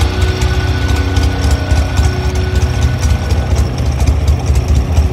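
IMZ Ural M-72 motorcycle's side-valve flat-twin engine idling with an even, low throb.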